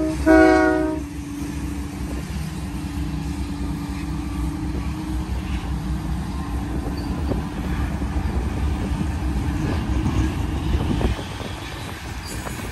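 A Union Pacific freight train's horn ends a short blast about a second in. Then the train's diesel locomotives pass close by with a steady low rumble. About eleven seconds in it drops quieter as the locomotives give way to the freight cars.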